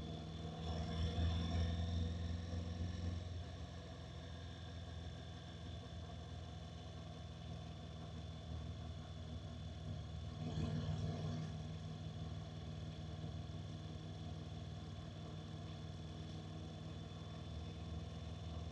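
Honda NC750X motorcycle's parallel-twin engine running steadily under the rider, its low note swelling briefly about a second in and again around halfway through.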